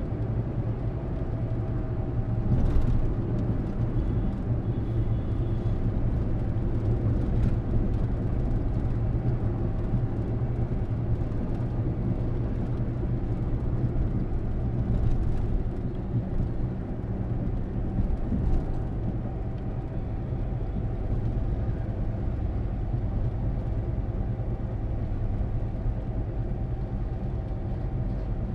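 Steady engine and tyre rumble inside a moving car on a highway, with a few faint brief clicks.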